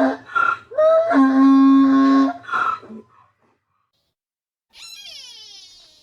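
Wild animal calls: long, steady-pitched cries in the first half, then a short pause and a fainter call that falls in pitch near the end.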